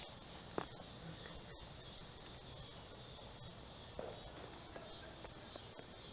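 Steady high-pitched chorus of insects, with a single sharp click just over half a second in.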